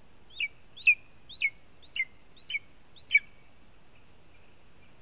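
Young lesser spotted eagle calling: a series of six short, sharp yelping notes, about two a second, each flicking up and then dropping in pitch.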